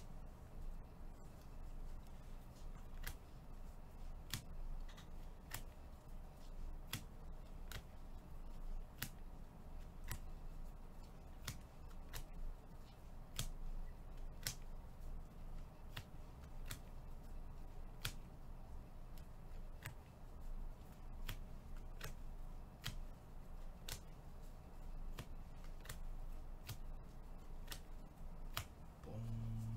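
Trading cards being flipped one at a time off a stack by gloved hands: a sharp click or snap about once a second as each card comes off, over a low steady hum.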